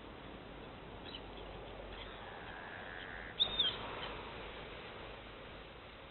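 Birds calling over a steady outdoor hiss, with short high chirps; the loudest call comes about three and a half seconds in.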